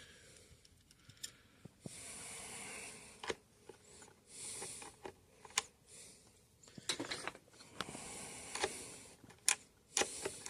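Hand work on guitar hardware: scattered sharp clicks and knocks of a tool and small metal parts being handled, with several scraping or hissing noises about a second long in between.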